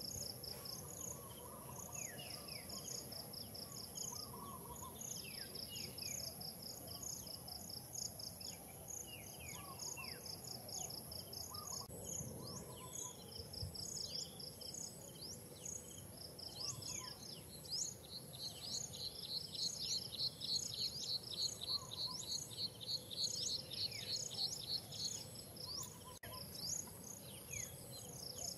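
Outdoor tree-canopy ambience: insects keep up a steady high-pitched whine and rapid pulsing trills, and a trill grows louder in the second half. Birds chirp in short, falling notes throughout.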